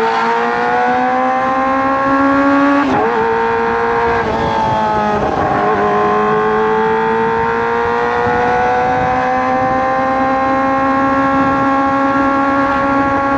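Kawasaki ZX-25R's 250 cc inline-four running through an aftermarket Racefit Slash exhaust while being ridden. The revs climb, drop with upshifts about three seconds in and again around five seconds in, then rise in one long, steady pull.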